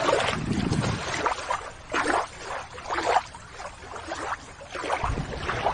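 Shallow water sloshing and splashing in irregular bursts as it is stirred, with a low rumble coming in near the end.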